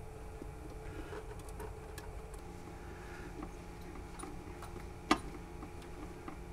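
Small metal clicks and ticks of a screwdriver and motor-lead wire terminals on the drive's power terminal screws, with one sharp click about five seconds in, over a steady low hum.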